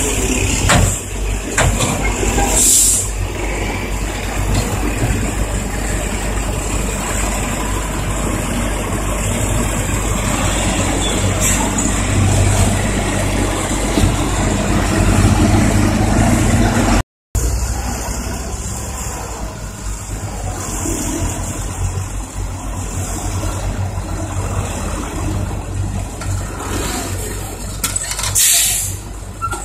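Diesel engines of ten-wheel dump trucks running steadily, with two short hisses of air, a few seconds in and near the end. The sound cuts out for an instant just past the middle.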